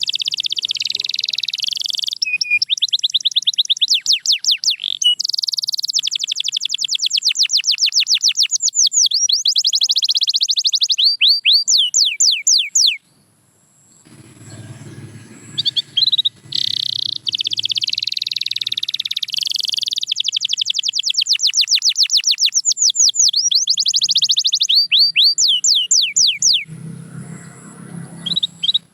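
Canary singing long phrases of fast trills and rapid rising sweeps. The song breaks off for about three seconds midway, resumes, and stops again shortly before the end.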